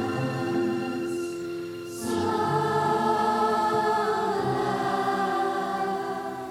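Youth choir singing a slow song in long, sustained chords, with a new chord entering about two seconds in.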